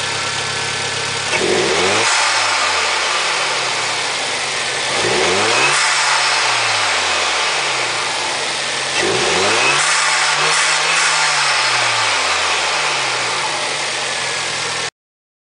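Turbocharged car engine, fitted with an AEM intake and a Forge recirculating blow-off valve, idling and revved three times about four seconds apart, each rev rising quickly and falling back to idle.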